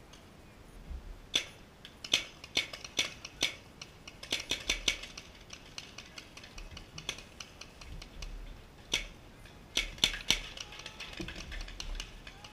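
Paintball markers firing: sharp pops in irregular rapid volleys, coming in several bursts, thickest in the first half and again near the end.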